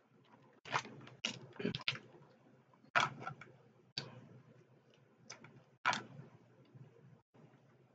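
Eating sounds: a scatter of short, sharp clicks and cracks from seafood shells being handled and bitten, with mouth sounds, about a dozen in all with gaps between.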